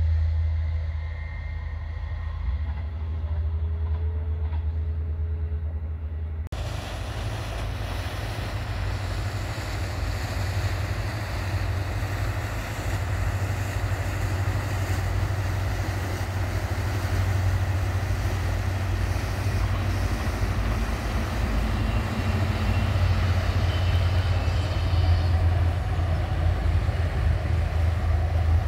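A diesel multiple-unit train running with a steady low engine drone. About six seconds in, the sound changes abruptly to a motor cruiser passing on the canal: its engine and wake make a steady rushing noise, mixed with wind on the microphone, that grows louder near the end.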